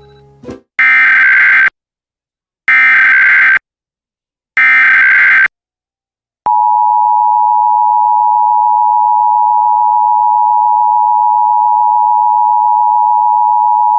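Emergency Alert System test signal: three one-second bursts of the digital SAME header data, about two seconds apart, then the steady two-tone EAS attention signal starting about six and a half seconds in.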